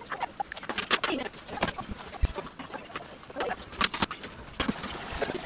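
Wire-mesh strainer baskets and chopsticks clinking and scraping against the rim of a large metal stock pot of thick curry: a run of sharp metallic clicks. Short bird-like calls are heard in the background.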